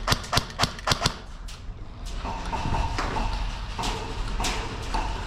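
Airsoft guns firing: a quick string of sharp shots in the first second, then a few more shots near the end.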